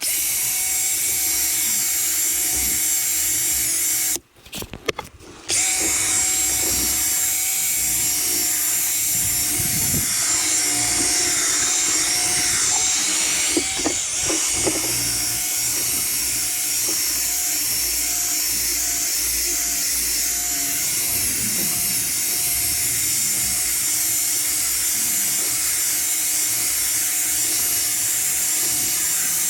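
Electric drill with a foam polishing pad running steadily with a constant whine, buffing a plastic headlight lens. About four seconds in it cuts out, blips on and off a few times, then runs again.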